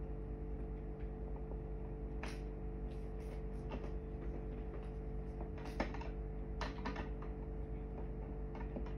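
A steady low hum throughout, with a few scattered light clicks and taps of small objects being handled while gluing.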